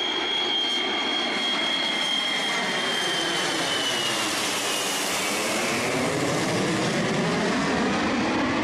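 Ilyushin Il-76 four-engined jet transport passing low overhead. Loud jet engine noise with a high whine that drops in pitch about four seconds in as the aircraft goes by, and a sweeping whoosh in the rumble beneath.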